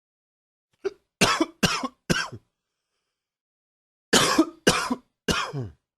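A man coughing hard in two bouts of three coughs each, with a pause of about two seconds between them. A brief catch in the throat comes just before the first bout.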